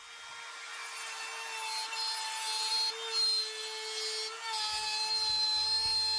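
Compact trim router spinning up to speed, then running with a steady whine as it cuts into plywood. It is routing a shallow lip around a recess with a smaller bit. A rougher low rumble joins the whine from about halfway through.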